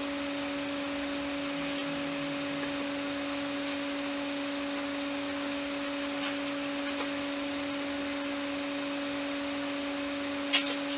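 A steady electrical or mechanical hum on two fixed pitches over an even hiss. A few faint clicks come through, and a sharper double click comes near the end.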